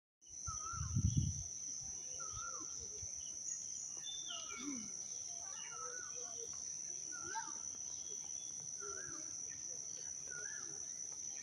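Rural outdoor ambience: a steady high insect drone, with birds repeatedly giving short chirping calls that rise and fall. A brief low rumble comes about a second in.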